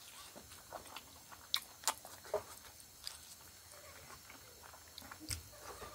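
A man chewing a mouthful of rice and pork eaten by hand, with faint wet mouth sounds and a few sharp clicks, the clearest about one and a half, two and five seconds in.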